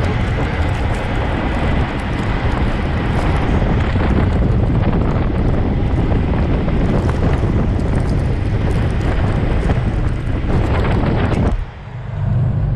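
Wind buffeting the microphone held outside the window of a moving semi truck, with road and truck noise under it. About 11.5 seconds in the rush cuts off sharply, and the steadier low drone of the truck cab takes over.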